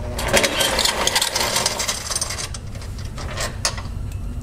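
A compact impact wrench hammers on a 13 mm engine-mount bolt for about two and a half seconds, breaking it loose with a rapid rattling. Then come a few quieter clicks and scrapes as the long bolt is drawn out on its socket extension.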